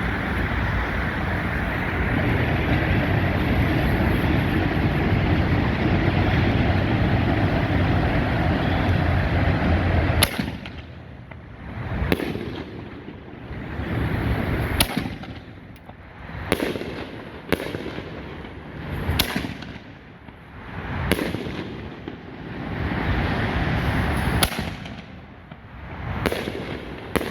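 Consumer fireworks mortar shells from a 12-shot rack. For about the first ten seconds there is a dense, continuous rushing noise. From then on come about a dozen sharp bangs, one every one to two seconds, each followed by a swelling hiss that fades.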